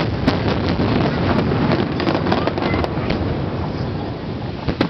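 Aerial firework shells bursting: a sudden loud bang right at the start, then a dense run of sharp cracks and pops over a low rumble, and another sharp bang near the end.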